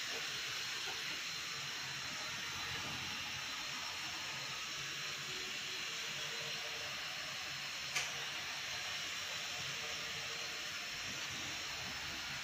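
Small toy quadcopter hovering, its four motors and propellers making a steady whirring hiss with a faint high whine. There is one sharp click about eight seconds in.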